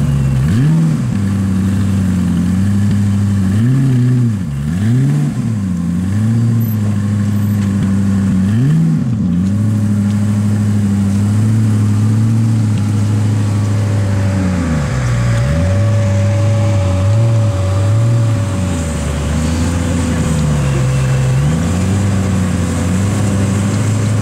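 Koenigsegg CC8S's supercharged V8 idling, blipped by the throttle several times into quick revs that rise and fall back to a steady idle.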